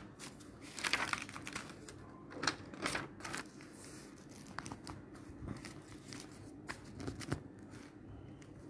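Sheets of paper and book pages rustling as they are handled and turned, a run of short brushing sounds that are strongest in the first three and a half seconds and fainter after.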